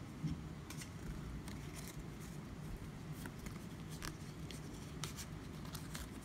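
Pokémon trading cards sliding and flicking against each other as a stack is handled and rearranged in the hands: soft, irregular clicks and rustles over a low steady hum.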